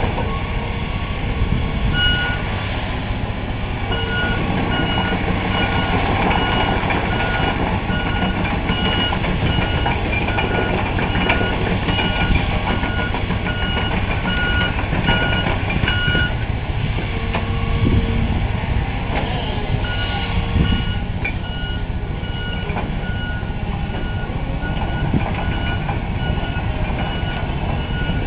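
Diesel heavy equipment running steadily, with a backup alarm beeping about one and a half times a second; the beeping stops about sixteen seconds in and starts again a few seconds later.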